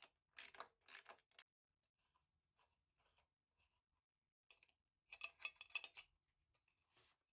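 Faint, quick clicks and light rattles from hand work on the motorcycle, thickest about five to six seconds in.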